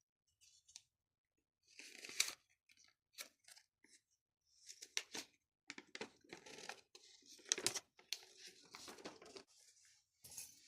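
LEGO Technic pieces being handled: irregular rustling, crinkling and sharp plastic clicks, in short bursts.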